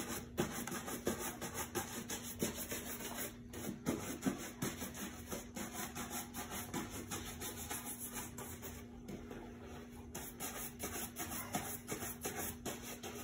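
Shoe brush buffing polish on a dress shoe, its bristles scrubbing the leather in quick repeated strokes.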